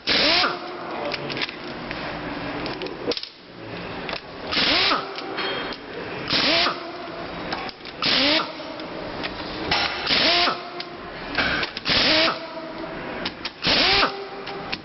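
Power tool run in short bursts during gearbox disassembly, about one burst every two seconds, with a whine gliding up and down between the bursts.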